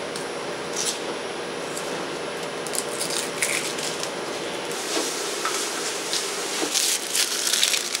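Kitchen working noise: a steady hiss with a faint hum, then scattered clicks and clatters from about five seconds in.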